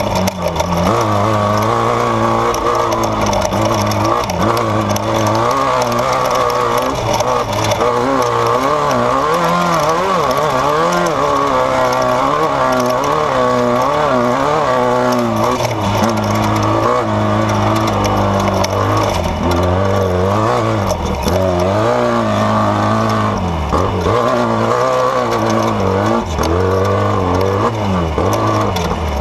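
Off-road race vehicle's engine running hard, its pitch rising and falling over and over as the throttle and revs keep changing.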